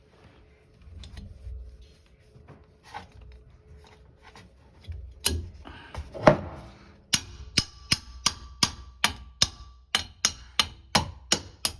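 Scattered light knocks, then a steady run of sharp hammer strikes from about seven seconds in, roughly two or three a second, each with a short metallic ring.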